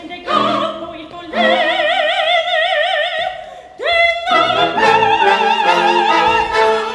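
Operatic soprano singing with orchestra: a few short phrases, then a long high note held with wide vibrato. About four seconds in, a rising slide leads into held string lines.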